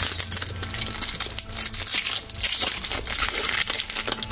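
Foil wrapper of a Pokémon TCG booster pack crinkling as it is torn open and pulled back from the cards, with a dense run of crackles.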